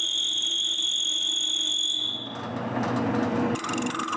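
Wood lathe spinning a small maple drawer pull, with a steady high whine, then the rough scraping of a turning tool cutting the spinning wood from about two seconds in. The sound shifts abruptly again shortly before the end.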